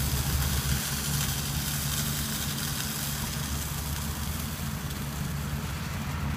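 Pickup truck engine idling steadily, with an even hiss over it.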